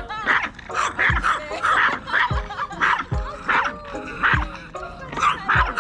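Background music with a steady beat, over a small dog's high, repeated barks and yips.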